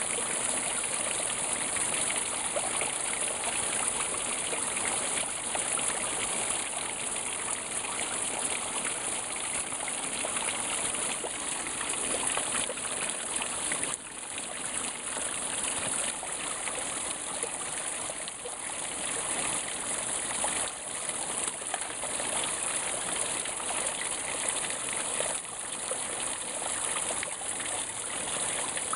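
Water running steadily at a partly frozen waterfall, a continuous rushing with no let-up.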